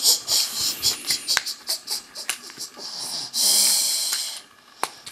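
Small hard plastic Kinder Joy toy capsule and toy parts being handled and pulled apart: a run of sharp plastic clicks and crinkly rustling, with a longer hissing rustle about three and a half seconds in.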